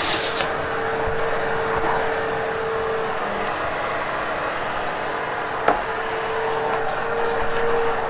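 Vacuum cleaner running steadily over carpet during pre-vacuuming, with a steady hum that drops out for a couple of seconds in the middle, and one sharp click about five and a half seconds in.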